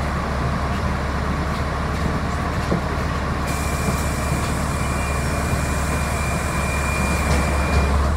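Steady low rumble of a city bus's engine, heard from inside the passenger cabin. From about halfway a thin high whine and hiss join in, and they cut off near the end.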